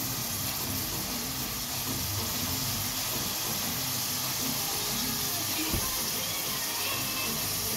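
Steady sizzling hiss from a steel pot of sliced onions, chopped tomatoes and spices cooking on the stove, with quiet background music underneath.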